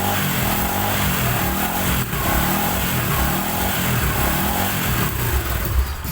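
Bajaj Boxer 150's single-cylinder four-stroke engine running, its speed rising and falling over and over a little more than once a second as the throttle is worked. This is the engine after its connecting rod and crankshaft bearing were replaced.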